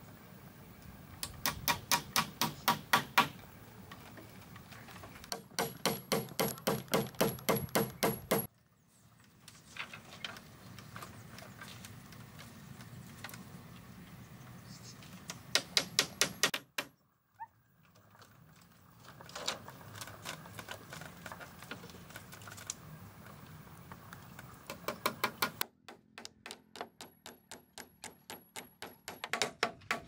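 Rapid runs of sharp knocks, about six a second, in several bursts of one to three seconds broken by abrupt cuts.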